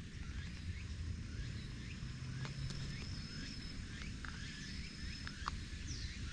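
Outdoor ambience: scattered short high chirps over a low steady rumble, with a thin high whistle held for about three seconds in the middle and a few faint ticks.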